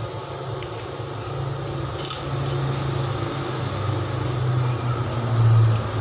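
A metal spoon clinks and scrapes on a plate, with two sharp clinks about two seconds in, over a steady low motor hum that grows louder toward the end.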